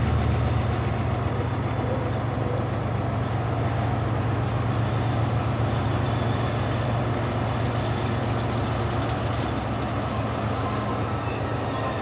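CSX diesel freight train approaching, its locomotive engine giving a steady low rumble. A thin, high, steady tone joins about halfway through.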